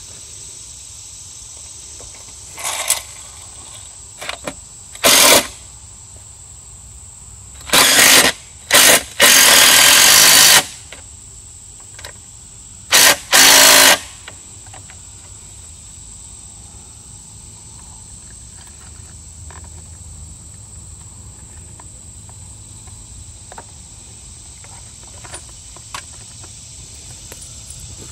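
Cordless impact driver running in a series of short bursts, the longest about a second, as it drives lag bolts through an aluminium ladder rail into a log.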